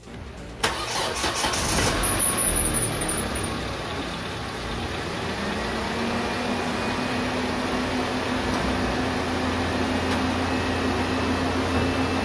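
Naza Citra's 2.0-litre DOHC engine starts about half a second in, on its test run after an oil change. It runs loudest for the first few seconds, then settles into a steady idle.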